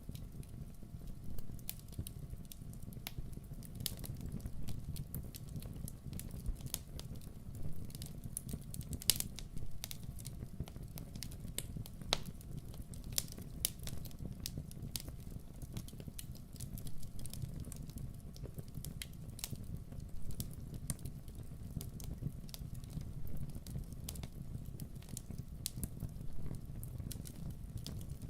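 Campfire burning, with a steady low rush of flame and irregular sharp crackles and pops from the burning wood, several a second.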